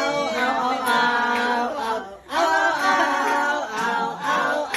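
A voice singing long held notes without accompaniment, in two phrases with a short break about two seconds in.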